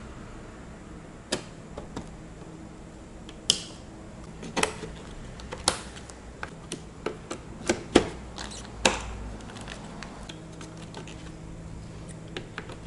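Scattered clicks and knocks of computer parts being fitted onto an ASUS EX-A320M Gaming motherboard, as RAM sticks and an AMD stock CPU cooler are pressed into place. The clicks come at uneven intervals, and the sharpest is about eight seconds in.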